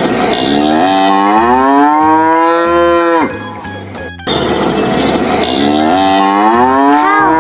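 Cow mooing: two long moos, each rising in pitch at the start and then holding steady for about three seconds, with a short pause between them.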